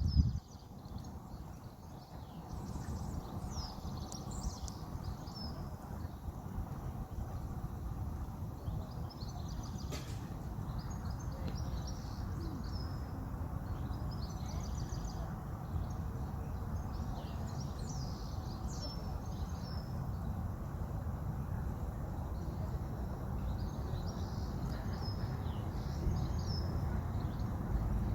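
Rural outdoor ambience: small birds chirping and singing in scattered short bursts over a steady low rumble.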